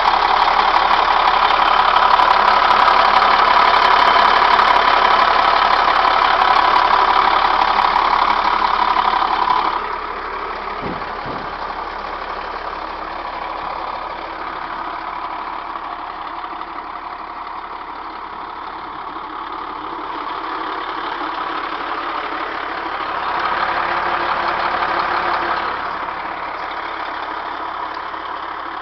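Cummins 8.3-litre inline-six turbo diesel of a school bus idling steadily. It is loud close to the open engine compartment for about the first ten seconds, then drops to a quieter idle. It grows louder again for a few seconds about three-quarters of the way through.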